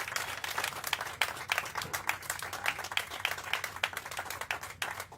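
A small group of people clapping their hands, with irregular separate claps.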